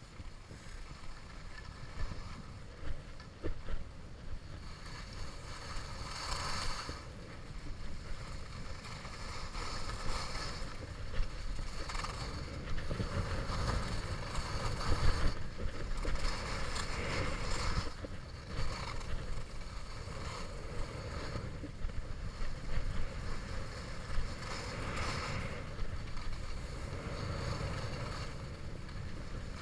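Skis sliding and scraping over groomed snow under a low wind rumble on the microphone, with louder hissing swells of edge scrape several times, as on the turns.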